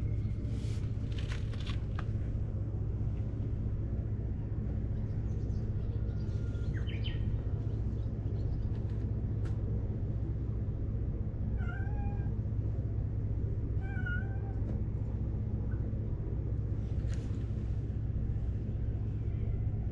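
Stray cat meowing twice, two short calls about two seconds apart, over a steady low rumble. A few sharp clicks come about a second in.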